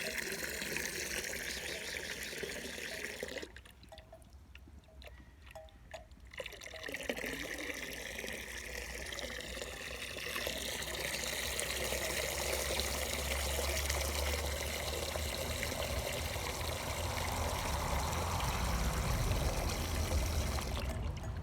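Running water, a steady trickling pour, which drops to a quieter level for about three seconds a few seconds in and then carries on.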